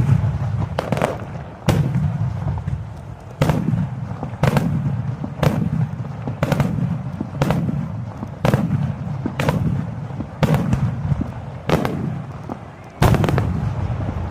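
Aerial firework shells bursting overhead about once a second, each a sharp bang followed by a low rolling rumble.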